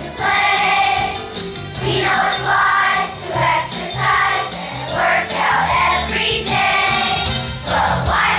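Elementary-school children's choir singing a song together, over an instrumental accompaniment with a moving bass line.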